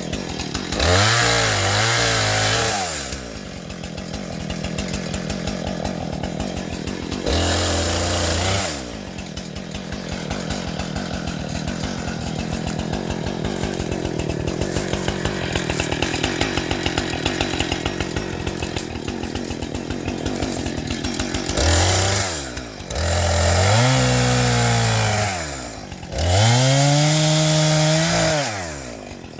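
An engine running steadily, revving up five times for one to three seconds each, its pitch rising, holding and dropping back.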